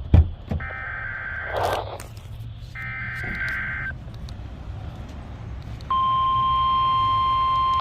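NOAA Weather Radio Emergency Alert System coding for a Required Weekly Test: two SAME header data bursts, each a harsh, buzzy second of warbling data tones, about two seconds apart. About six seconds in, the steady 1050 Hz weather radio warning alarm tone starts. There is a sharp click right at the start.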